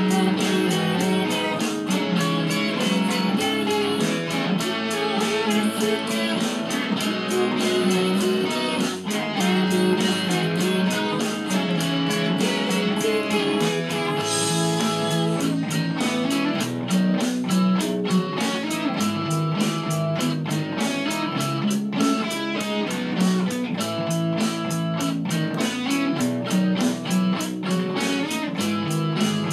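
Music: a Fender Stratocaster electric guitar playing a slow ballad, its chords picked and strummed in a steady rhythm.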